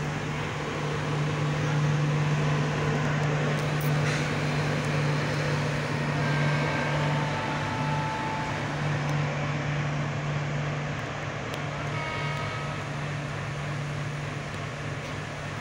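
Passenger train rolling slowly through a station, heard from aboard a coach: a steady low hum over rumbling running noise. Brief thin high-pitched tones come in about six to eight seconds in and again around twelve seconds.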